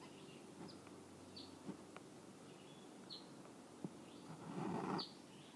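A few short, high bird chirps, about four, spaced a second or more apart over faint outdoor background. A brief rustling noise about four and a half seconds in is the loudest sound.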